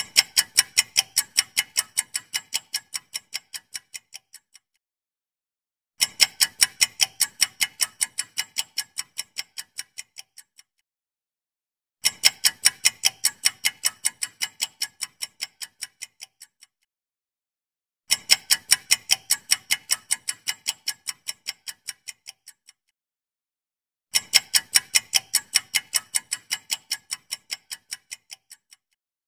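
Ticking-clock sound effect of a quiz countdown timer, in five runs of about four and a half seconds, one starting every six seconds. Within each run the ticks come at about four a second and fade away toward its end.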